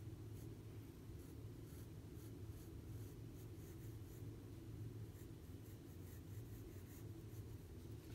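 Graphite pencil scratching on sketchbook paper in short, repeated strokes, about two a second. The strokes are faint over a low, steady room hum.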